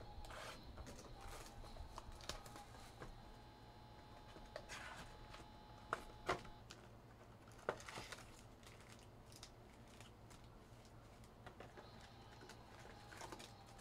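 Faint handling of a cardboard trading-card hobby box and its foil card packs: rustling and scraping, with a few sharp taps about six to eight seconds in as the box is opened and the packs are set down on the table.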